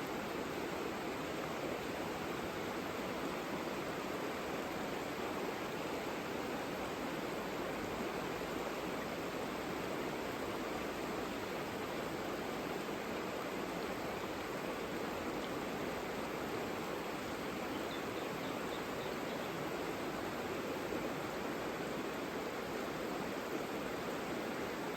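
Mountain river flowing, a steady even rush of water over rocks. A brief faint high chirping comes in about three-quarters of the way through.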